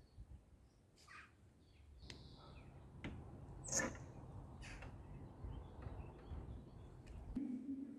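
The metal latch and handle of a heavy wooden church door clicking and clacking as it is worked and the door is pushed open, the loudest clack about four seconds in. Birds chirp faintly outside.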